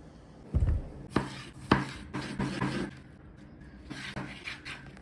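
Large kitchen knife slicing a tomato on a wooden cutting board: a series of cutting strokes, each ending in a sharp knock of the blade on the board, the loudest in the first two seconds.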